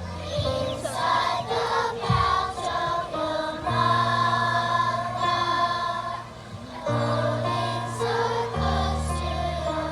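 School choir singing with accompaniment, several voices over long held low notes.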